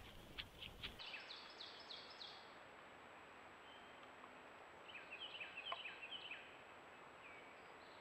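Faint songbird calls: a quick run of repeated high notes, then a second run of repeated notes a few seconds later, over a thin steady high-pitched whine.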